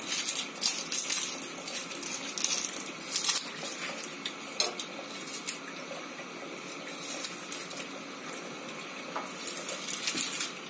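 Dry onion skin crackling and rustling as it is peeled off with a knife: a run of short, crisp crackles over the first few seconds, sparser after, with a few more near the end.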